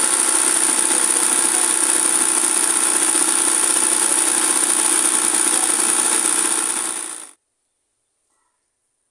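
Electric sewing machine stitching free-hand embroidery, running fast and steadily with a high whine; it cuts off abruptly about seven seconds in, leaving near silence.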